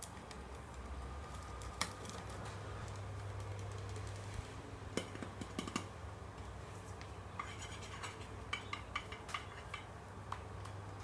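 Hands handling small objects on a tabletop, a plastic water bottle and a metal tin, making scattered light taps, clicks and scrapes, with a quick run of taps between about seven and nine seconds in. A steady low hum runs underneath.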